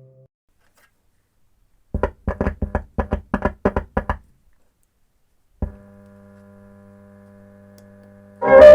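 Music played through a homemade transistor amplifier and speaker. After a pause, a quick run of about ten short staccato notes, then a held low tone, and loud full music starting near the end.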